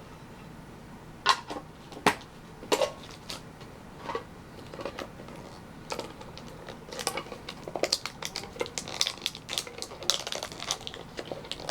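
Small metal collector tins being handled and pried open by hand: irregular clicks, taps and light scrapes of thin metal, a few sharp single clicks near the start, then quicker, denser clicking from about seven seconds in.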